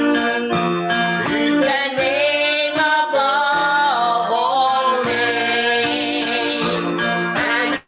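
Worship song music: a gliding lead melody with wavering held notes over sustained accompanying chords, cut by a sudden brief dropout just before the end.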